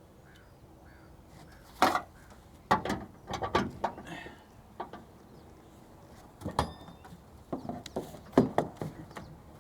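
Ratchet straps being handled to tie down a tank in a pickup bed: irregular metal clicks and clanks from the hooks and ratchet buckles, in two clusters with single knocks between them.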